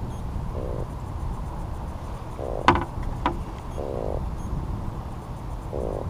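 Freshwater drum grunting four times, short buzzing croaks about one and a half to two seconds apart, made by vibrating its swim bladder. Two sharp clicks in the middle, the first the loudest sound.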